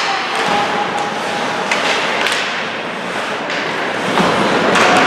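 Ice hockey play in an arena: a steady wash of rink noise broken by sharp hits of sticks, puck and boards, two in quick succession near the middle and another near the end.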